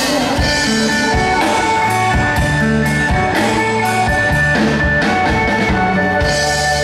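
Live band playing an instrumental passage, a melody over bass and drum kit, with no singing.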